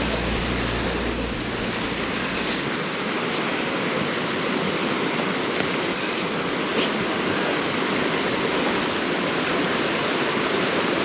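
Mountain creek waterfall pouring, a steady, even rushing of falling water.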